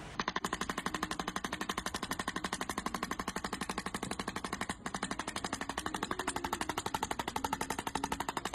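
Electric chiropractic adjusting instrument firing a rapid, even train of clicking taps against a dog's back, about a dozen a second, with one brief break about halfway through.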